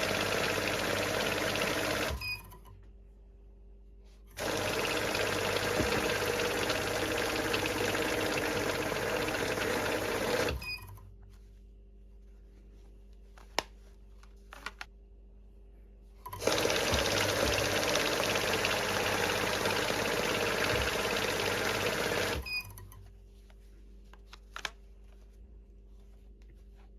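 Electric banknote counting machine running in three spells, each starting and stopping abruptly: a rapid, dense whirr of notes being fed through. The first spell ends about two seconds in, and the next two last about six seconds each. The quieter pauses between them hold a few single clicks.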